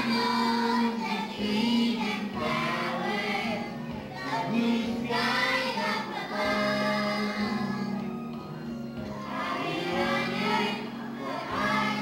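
A group of young children singing together on stage.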